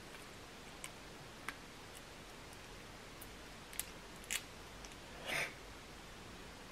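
Faint, sparse crackles and clicks of cooked crab shell being picked apart by fingers, with a longer soft crunch or rustle a little past five seconds in.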